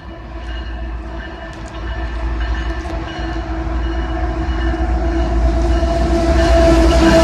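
CSX freight train's diesel locomotives approaching, their steady engine drone and rumble growing louder as they come near.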